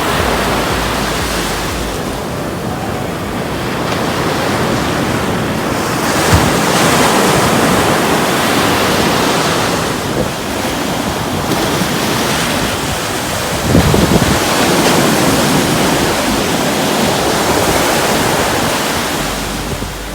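Ocean surf washing in and out at the shoreline, with wind buffeting the microphone. The wash swells and ebbs, with louder surges about six and fourteen seconds in.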